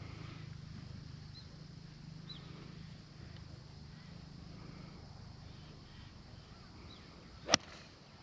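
Golf club striking a ball off the fairway: one sharp crack near the end, the loudest thing heard. Before it, only a low steady hum with a few faint bird chirps.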